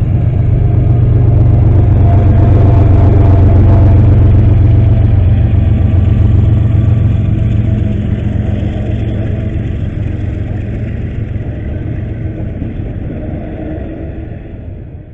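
Diesel-electric freight locomotive working as a mid-train distributed power unit passes close by with a loud, steady low engine rumble. The rumble is loudest in the first half and fades after about eight seconds, leaving the steady rolling noise of the double-stack container cars going by.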